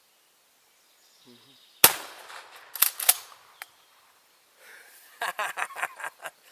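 A single loud shotgun blast about two seconds in, followed a second later by a few sharp clacks and then, near the end, a quick run of rapid thumps.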